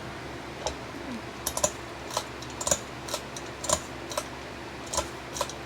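Sharp clicks and taps, about ten at uneven spacing, from small hard parts of a ceiling fan's switch assembly being handled and worked.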